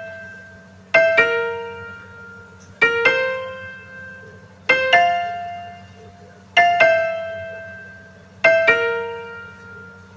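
Background piano music: a gentle two-note figure struck about every two seconds, each pair ringing out and fading before the next.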